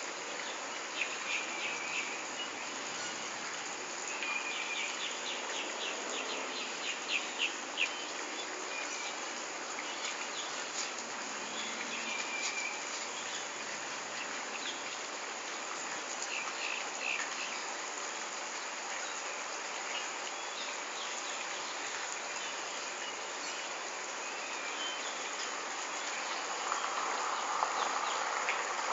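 Steady outdoor insect chorus, with several short trains of rapid high chirps, the longest around five to eight seconds in. A rougher rushing noise comes up near the end.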